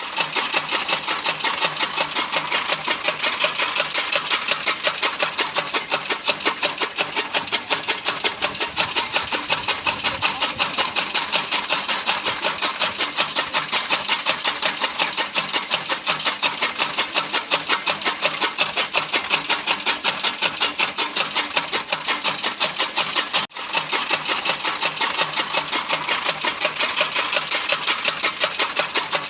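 Fodder cutting machine (chaff cutter) running with a fast, even chopping rhythm of about five beats a second. The sound drops out for a moment about 23 seconds in.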